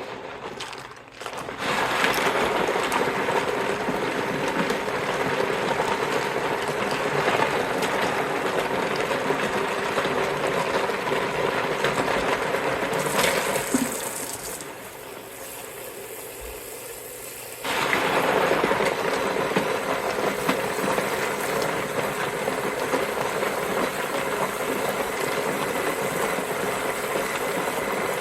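Mini washing machine's impeller churning Lego bricks in soapy water on its soft wash cycle, with the bricks grinding against each other and the impeller. This is taken as a bad sign that the impeller is hard on the bricks. The noise goes much quieter for about four seconds in the middle, then starts again.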